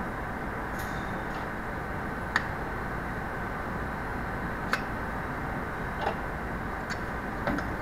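Steady background noise of a factory assembly floor, broken by a few short, sharp clicks and knocks as a steering gear assembly is handled on its fixture at the press bench.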